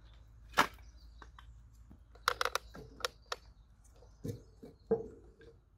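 Pieces of split firewood being knocked together and set down by a fire pit: a sharp wooden knock about half a second in, a quick clatter of clicks a little after two seconds, then two duller thuds near the end.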